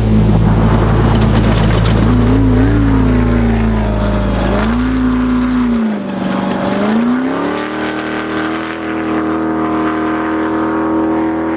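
Off-road race vehicle's engine revving, its pitch rising and falling several times, then holding at a steady high pitch through the second half. A steady low hum underneath cuts off about halfway through.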